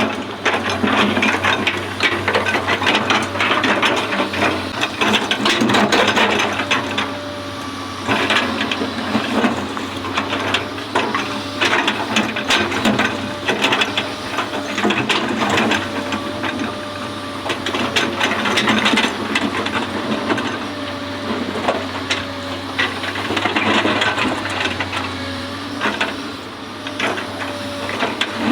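Excavator working: its engine runs under dense metallic clattering and rattling, with a faint whine that comes and goes.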